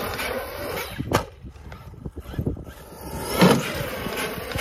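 Traxxas Sledge RC monster truck's brushless electric motor whining as it is throttled while the truck flies through the air off a ramp, the whine swelling loudest near the end. A sharp knock about a second in.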